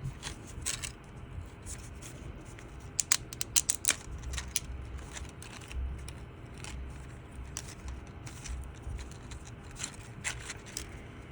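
Scattered light clicks and scrapes of a 3D-printed plastic articulated cat being handled: its jointed segments flexing and clicking as it is worked loose from the print's base. The clicks bunch together about three to four and a half seconds in, with fewer after.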